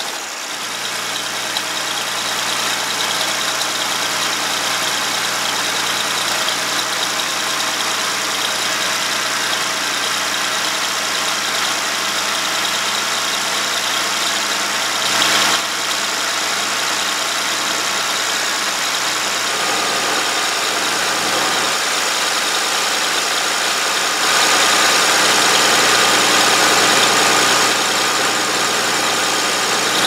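Oliver 1650's Waukesha six-cylinder diesel engine running at idle, freshly started on ether after its injection lines were bled. There is a brief louder noise about halfway, and the engine runs a little harder for a few seconds about three-quarters of the way through.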